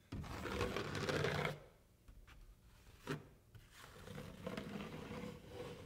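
Taping knife scraping through drywall mud along a round corner bead in two strokes, with a short click between them.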